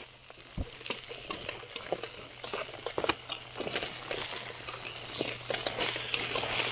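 Aluminium-foil cooking packet crinkling as chopped vegetables in it are stirred and pushed about by hand: a run of small irregular clicks and crackles.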